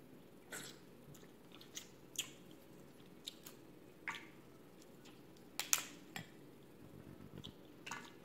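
Cooked crab leg shells being snapped and picked apart by gloved hands: a scattered string of short, sharp cracks and crackles, the loudest a double crack about two-thirds of the way through.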